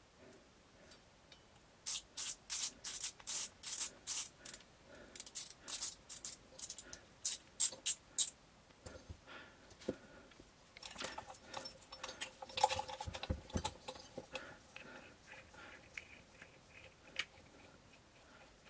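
A hand cutting tool snipping in two runs of quick, crisp strokes, about three a second, then a few seconds of light rattling and small knocks as tools and parts are handled.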